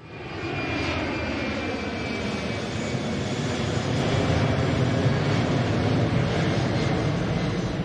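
Jet airliner engines running, a loud steady rushing noise with a faint whine that slides slightly down early on. It fades in at the start.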